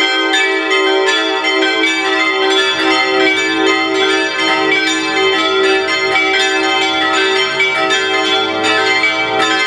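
Full peal of five church bells from the Rincker foundry, tuned e'' g'' a'' c''' d''', swinging together so that their strokes overlap in a continuous ringing.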